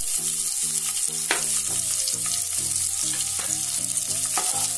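Sliced onions sizzling steadily in hot oil in a non-stick pan, freshly added to the fried whole spices, with a few clicks of a wooden spatula stirring them. Soft background music notes play underneath.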